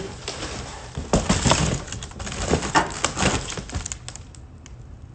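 Cardboard boxes being shifted and pulled out of a pile: a run of rustling, scraping and knocking that is busiest in the middle and dies down near the end.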